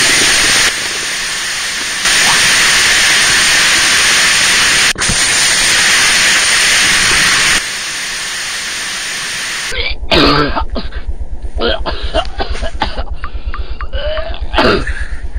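A loud steady hiss that jumps in level abruptly a few times and stops about ten seconds in, followed by a fast low pulsing with short, irregular cough-like noises over it.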